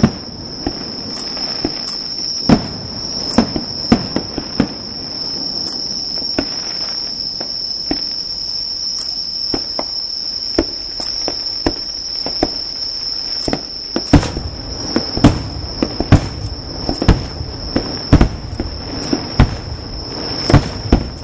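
Aerial fireworks bursting with sharp bangs and crackles at irregular intervals, coming thicker and faster about two-thirds of the way in. Under them, insects sing a steady high-pitched note.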